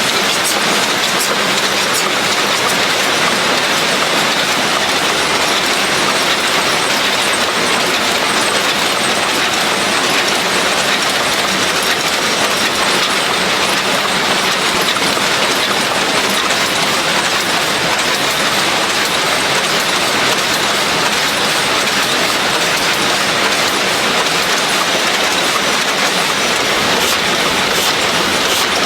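Production-line machinery running steadily: a loud, even mechanical rush with faint rapid ticking over it.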